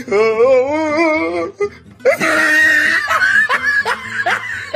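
Edited-in comic sound effects: a long sung note with a wavering pitch, then a noisy burst and a quick run of short rising squeaky laughs.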